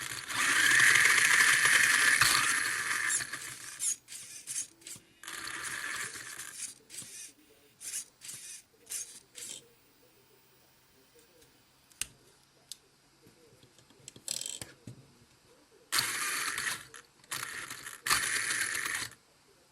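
Small geared electric motor whirring in irregular start-stop bursts, longest in the first few seconds and again in three short runs near the end, with sharp clicks between.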